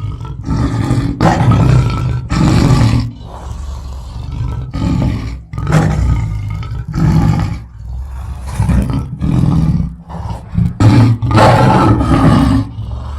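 Lion roaring: a series of about a dozen deep, loud roars in quick succession, each half a second to a second long with short breaks between.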